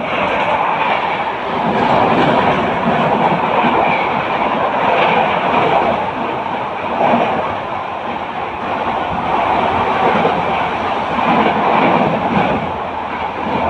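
Mumbai suburban local electric train running at speed: a loud, steady rail noise of the train in motion that swells and eases slightly.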